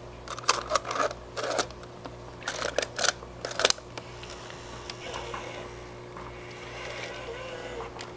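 Sharp plastic clicks and clatter of a tape cassette being put into a Sony camcorder's tape compartment and the compartment snapped shut, clustered in the first four seconds. After that only a faint low hum remains.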